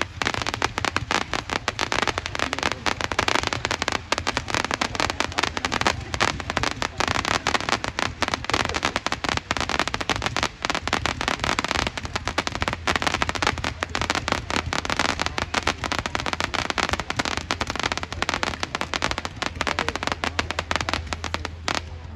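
A 600-shot 500-gram consumer fireworks cake firing rapidly: a dense, unbroken stream of sharp pops and crackles, many shots a second, that keeps going with no pause.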